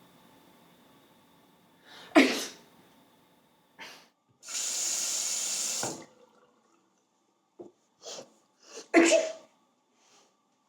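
A person sneezing twice, once about two seconds in and again near the end, with a steady hiss of about a second and a half in between.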